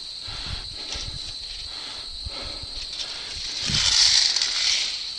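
Footsteps: soft thuds about twice a second over a steady high hiss, with a louder rush of rustling noise about four seconds in.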